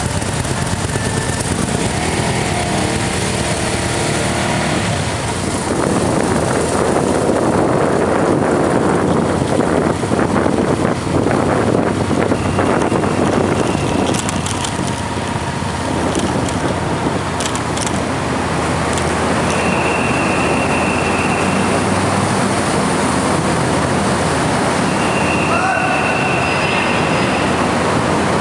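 Motorcycle and vehicle engines running steadily, with two long, high beeps in the second half.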